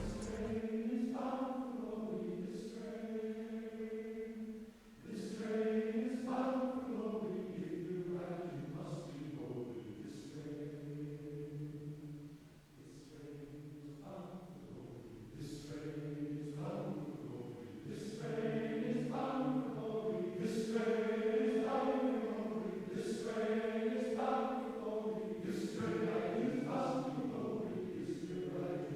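Men's chorus singing a cappella in slow, sustained phrases, with two brief pauses between phrases.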